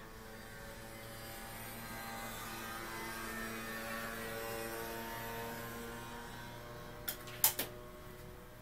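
A steady electrical or motor hum with several overtones, holding one pitch. About seven seconds in come three quick sharp clicks.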